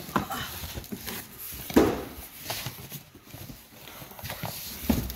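Cardboard boxes being opened and vinyl records slid out and handled: irregular rustling and knocking of cardboard, with one louder knock about two seconds in.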